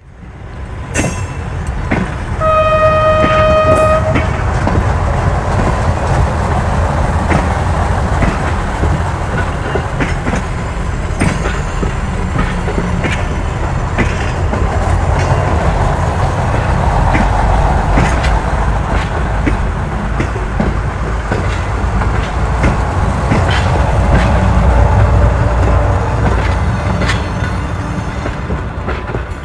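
Recorded train sound effect: one horn blast about two seconds in, then a train running on the rails with a steady rumble and scattered clatter, swelling past the middle and fading near the end.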